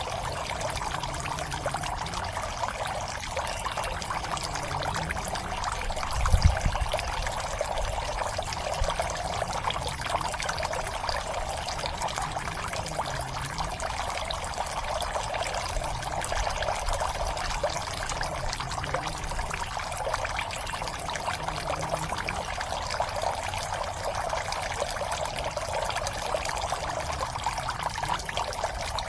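Water pouring and trickling steadily into a fish pond, an even splashing that runs without a break. One brief dull low thump comes about six seconds in.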